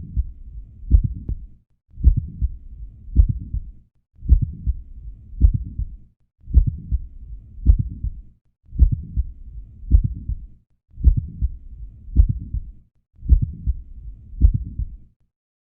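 Heart sounds heard through a stethoscope: sharp low beats about once a second, with a low rushing noise filling the gaps between beats. The recording breaks off briefly about every two seconds and stops shortly before the end.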